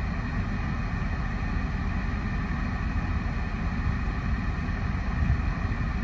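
Steady low rumble and hum of a car heard from inside its cabin, with the engine running.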